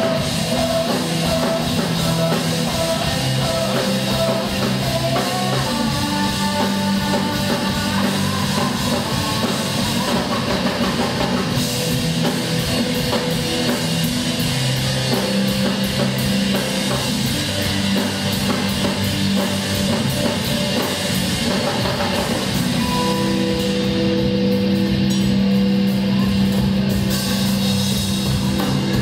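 Live rock band playing: drum kit and electric guitar at a steady, loud level.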